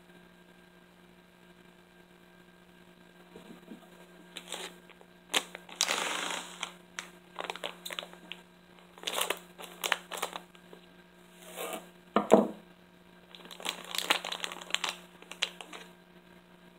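Plastic blind-bag toy wrapper crinkling as it is handled, cut open with scissors and torn. The sound comes in irregular bursts of rustling after a quiet first few seconds, with the loudest crackle about two-thirds through.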